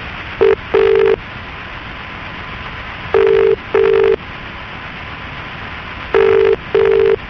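British telephone ringing tone heard down the line on an outgoing call: three double rings about three seconds apart, over a steady line hiss.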